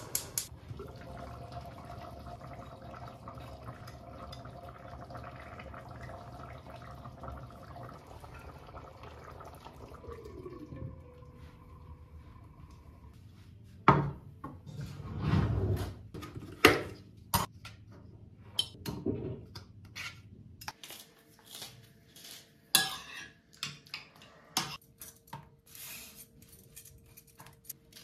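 A steady hum for the first dozen seconds, then kitchen handling sounds: a ceramic bowl set down on a wooden cutting board with sharp knocks, and a metal spoon clinking against the bowl, with several louder clinks.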